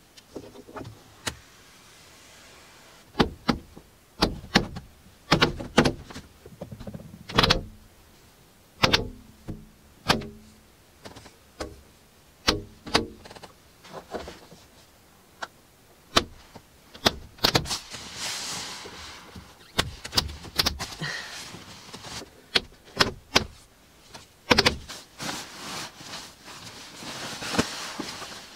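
A run of clicks, knocks and thumps as things are handled inside a van, then rustling of a down sleeping bag being handled and folded over the last several seconds.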